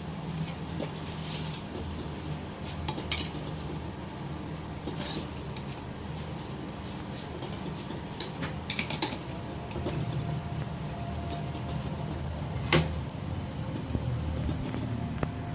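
Scattered clinks and knocks of kitchen utensils against pots and dishes over a steady low hum, with one sharper knock near the end.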